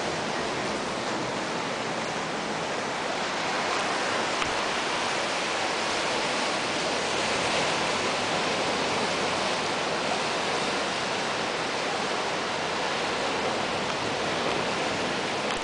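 Ocean surf breaking, heard as a steady, even rush of waves.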